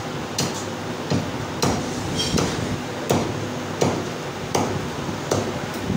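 Heavy meat cleaver chopping mutton on a wooden stump chopping block: about nine even, sharp chops, roughly one every 0.7 seconds.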